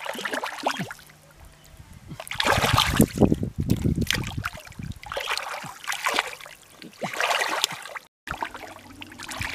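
Thick muddy water sloshing and splashing as hands grope through it and legs wade, in several separate bursts.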